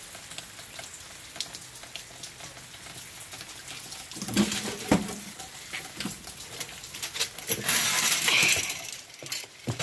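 Rainwater dripping and pattering in light, scattered ticks, with two dull thumps about four and five seconds in and a louder rushing hiss near the end.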